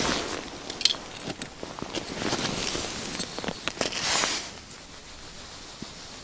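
Rustling of a winter suit and a few light clicks and taps as hands change the jig on a small ice-fishing rod; the rustling dies down after about four and a half seconds.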